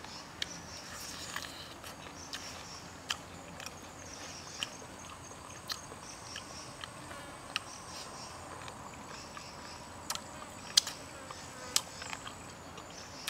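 Insects chirring steadily in the background, broken by scattered sharp clicks and smacks of someone eating a grilled chicken leg off the bone, the loudest two near the end.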